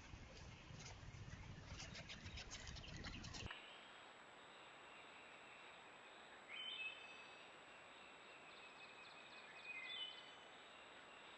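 A run of irregular clicks over a low rumble, then after a cut, two short bird calls about three seconds apart over faint outdoor background noise.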